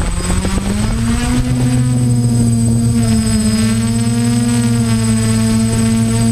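Drone's electric motors and propellers spinning up for takeoff, the pitch rising over about the first second, then running steadily as it climbs and hovers, heard close up through the drone's own onboard camera.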